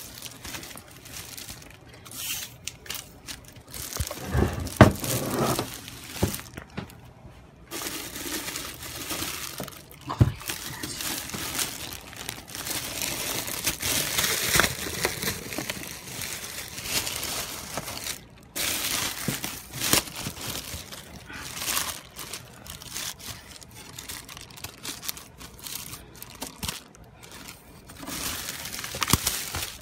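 Packaging rustling and crinkling as a boxed desktop computer is lifted out and unwrapped, with a few knocks, the loudest about five seconds in and again about ten seconds in.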